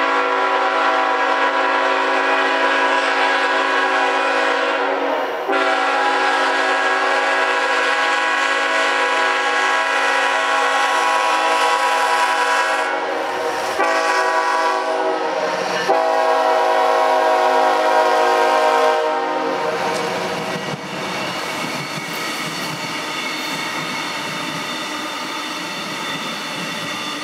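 A Union Pacific diesel locomotive's multi-chime air horn blows as it approaches and passes: two long blasts, a short one and a final long one, the grade-crossing signal, and the last blast sounds slightly lower in pitch as the engine goes by. After the horn stops, near the end, comes the steady rumble and wheel noise of the Brightline passenger cars rolling past on the rails.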